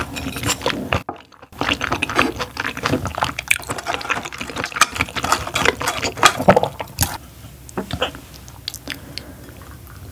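Close-miked wet chewing and mouth sounds of eating a steamed scallop dipped in fresh cream: a dense run of squishy, smacking clicks. It drops out briefly about a second in and thins to a few soft clicks in the last couple of seconds.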